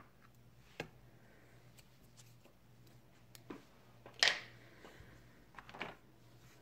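A few light taps and clicks of painting tools being handled: a brush and a plastic watercolour palette. The loudest click comes a little after four seconds.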